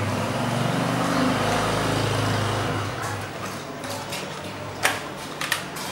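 A small engine passing by, its hum swelling and then fading over about three seconds, followed by two sharp clicks near the end.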